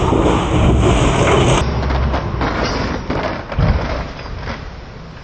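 Heavy truck engine running with a loud low rumble for about the first second and a half, then the sound changes abruptly to quieter, irregular outdoor noise with a single thump about three and a half seconds in.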